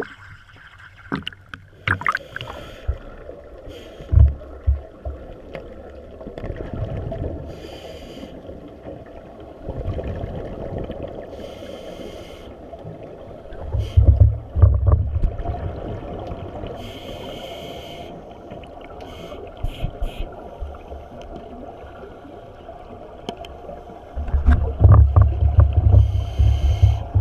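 Scuba regulator breathing heard underwater through the camera housing: loud low rumbling bursts of exhaled bubbles, strongest about halfway through and near the end, between shorter hissing breaths.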